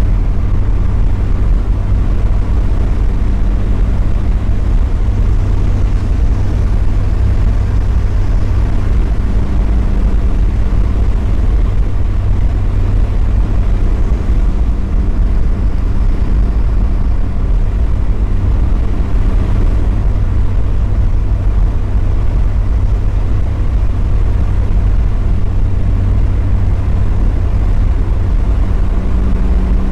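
Mazda Miata's inline-four engine and tyres at a steady cruise: a constant low engine drone over road noise.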